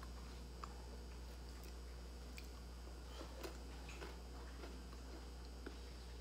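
Faint crunching from chewing crispy fried cake, heard as small scattered clicks over a steady low hum. Some of the ticks fall about once a second.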